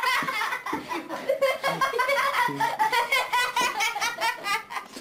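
People laughing hard in quick, repeated bursts.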